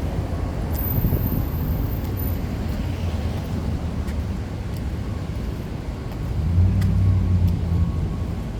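Road traffic: a steady rumble of passing cars, with one vehicle's engine louder for about a second around two-thirds of the way through.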